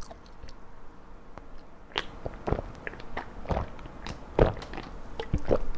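Gulping beer from a can held close to the microphone: a series of short swallows with small throat and mouth clicks, starting about two seconds in.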